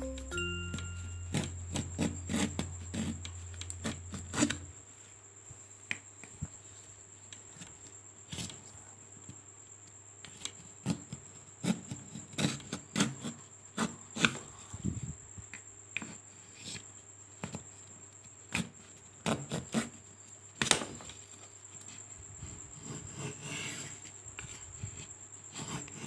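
Small handmade wooden hand plane shaving a wooden board: a series of short, irregular scraping strokes as the blade takes off curled shavings. Background music with a low hum ends about four and a half seconds in.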